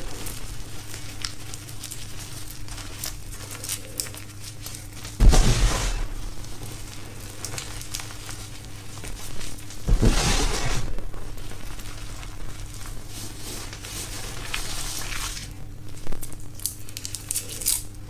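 Hands crushing and squeezing crumbled gym chalk: a dry crunching and crumbling, with heavier crunches about five seconds in and again about ten seconds in, and a few short ones near the end.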